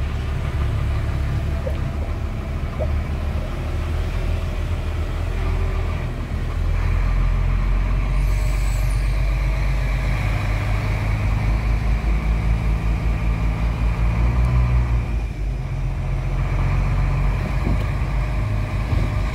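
Vehicle engine running steadily while driving, growing louder about seven seconds in. There is a brief high hiss around eight seconds.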